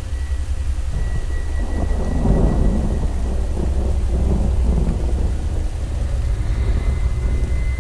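Thunder rumbling: a deep rolling rumble that swells about two seconds in and slowly fades, over a steady low drone.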